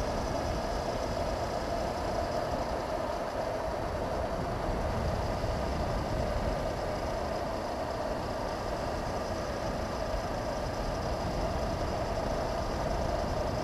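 Honda CB500X's parallel-twin engine running steadily on the move, mixed with wind rush buffeting a helmet-mounted camera.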